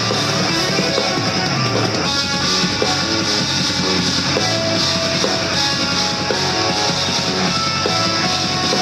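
Instrumental progressive metal playing: intricate electric guitar riffing over drums.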